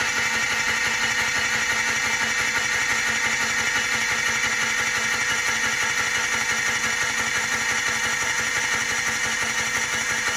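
Electric starter steadily spinning a two-stroke ATV engine over without it firing. The engine is being cranked to drive its oil injection pump and test whether the pump draws and delivers oil.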